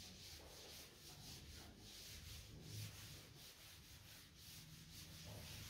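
Faint, rhythmic swishing of a felt duster wiped back and forth across a chalkboard, erasing chalk.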